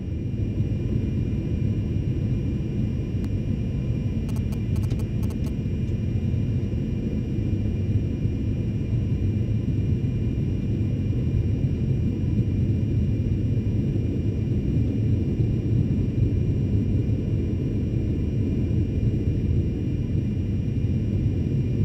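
Steady low rumble of the Antonov An-225 Mriya's turbofan engines at taxi power, heard from inside the flight deck, with a few faint clicks about four to five seconds in.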